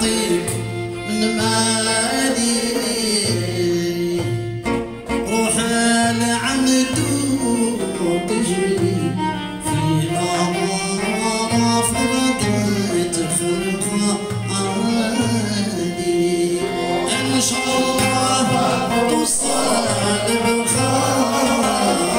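Live band music: a violin played upright on the knee carries a bending melody with singing, over a hand drum and a steady bass note repeating about once a second.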